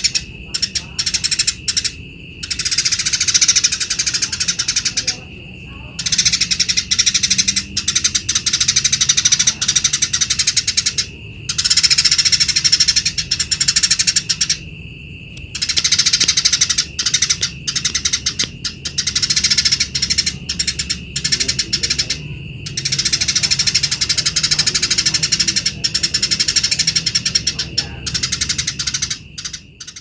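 Eurasian tree sparrow singing in long, unbroken runs of rapid, high chattering chirps, each run several seconds long with short pauses between, over a steady high tone.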